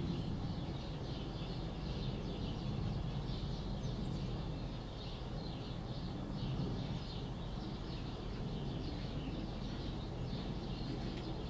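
Young chicks peeping continuously, many short high chirps overlapping, over a steady low rumble.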